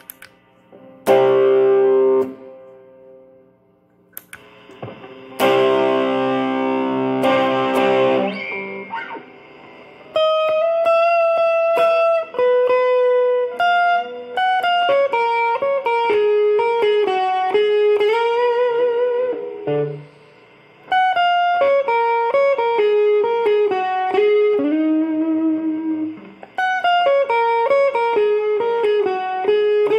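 Electric guitar played through a Valeton Dapper Amp Mini pedal into a Fender Champion 20 amp. A few ringing strummed chords come first, then, about ten seconds in, a single-note melody with string bends and vibrato.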